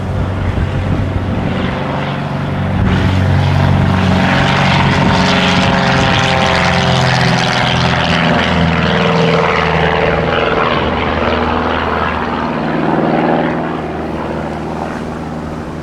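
Small propeller airplane passing close by, its engine note swelling and then sliding gradually lower in pitch as it goes past, loudest from about three seconds in until near eleven seconds.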